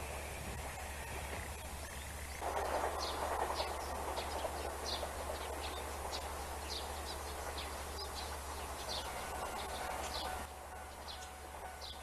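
The running sound of a diesel railcar fades away over the first two seconds; then small birds chirp in short, quick calls, repeated many times over a steady outdoor background noise.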